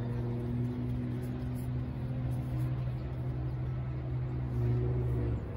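An engine running steadily, a low hum with overtones, that stops abruptly shortly before the end.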